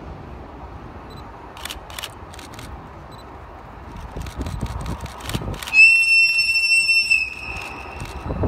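Bursts of rapid camera-shutter clicks, then about six seconds in a shrill, steady whistle blown for about a second and a half and trailing off: the air whistle of an approaching JR EF81 electric locomotive.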